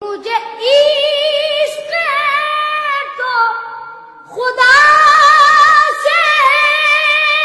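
A boy singing a kalam solo and unaccompanied in a high voice, holding long notes with a wavering vibrato. He sings two phrases with a short break for breath about four seconds in.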